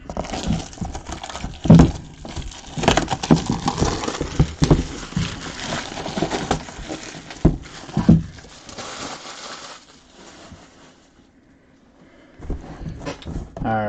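Plastic shrink wrap being torn and crumpled off a sealed box: a dense, crackly crinkling with sharp snaps that dies away about ten seconds in, followed by a few brief rustles.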